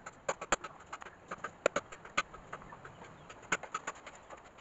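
A machete chopping at a green coconut's husk and shell: a string of sharp knocks at uneven intervals.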